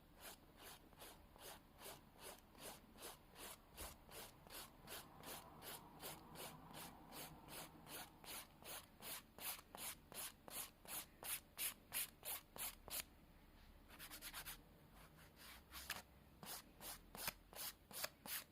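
Hand nail file scraping back and forth over a freshly sculpted nail, quick even strokes about two to three a second. The strokes stop briefly about two-thirds of the way through, then resume.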